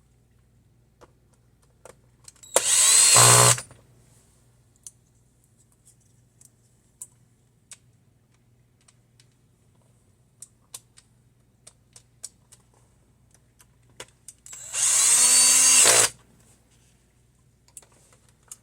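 An electric screwdriver runs in two short bursts, about a second each, the first a few seconds in and the second near the end, its motor pitch gliding as it spins up and down, driving the small screws of a Dell Inspiron 8600 laptop. Small clicks of handled screws and parts come in between.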